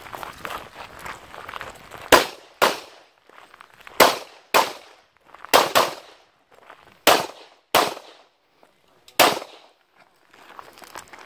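Handgun shots fired at targets, about nine sharp cracks mostly in quick pairs about half a second apart, with a second or so between pairs. Footsteps on gravel can be heard before the first pair and again near the end.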